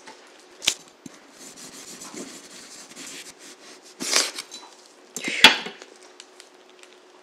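Chef's knife slicing through a log of sablé cookie dough and knocking down onto the silicone baking mat beneath: a sharp knock under a second in, then two louder cuts about four and five and a half seconds in, the second ending in a hard knock, with soft rustling of gloved hands on the dough between.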